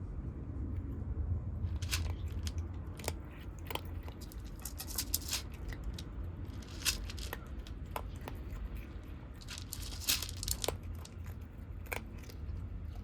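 Kittens crunching dry cat food: irregular sharp crunches, thickest about five and ten seconds in, over a steady low rumble.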